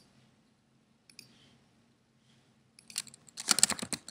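A few single computer mouse clicks, then from about three seconds in, fast typing on a computer keyboard.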